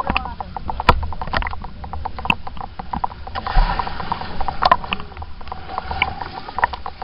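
Underwater sound of a swimmer stirring the water: a rapid run of small clicks and pops over a low rumble, with a rush of bubbles about three and a half seconds in.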